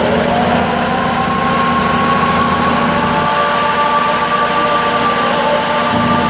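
A vehicle engine running steadily amid loud traffic noise. Its pitch rises over the first second or so and then holds level.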